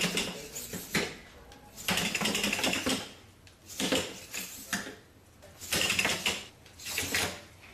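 Dynamixel AX-18A servos in a Bioloid GP humanoid robot's legs whirring and buzzing in about five short bursts as the robot steps and kicks at a ball.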